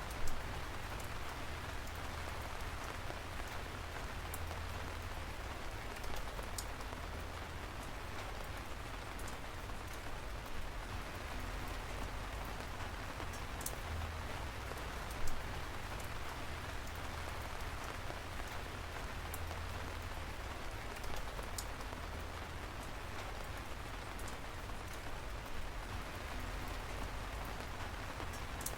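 Steady rain falling, with now and then a single louder drop striking close by; the loudest come just after the start and about halfway through.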